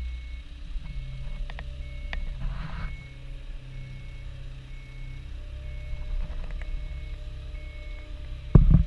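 Diesel engine of a lifting machine running steadily, heard from inside its cab, with a short high warning beep repeating about once a second while it lowers a precast concrete panel on chains. A loud thump near the end.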